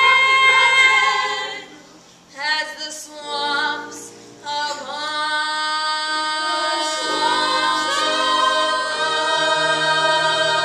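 A woman singing a slow stage-musical ballad, holding long notes with vibrato. A brief pause about two seconds in, a few short phrases, then one long final note held to the end.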